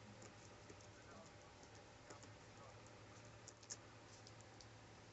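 Faint keystrokes on a Novatech 8599 laptop's keyboard as a password is typed: a few scattered soft clicks over a low steady hum.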